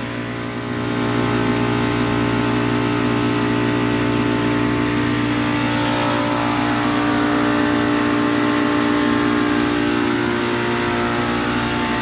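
Compressor of a Multistack modular water chiller running under load, a steady mechanical hum of several fixed tones that grows louder about a second in and then holds even.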